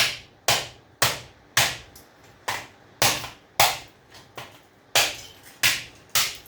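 Hammer tapping repeatedly on a rusted breaker switch assembly to knock it apart, about two sharp knocks a second, each with a short ring.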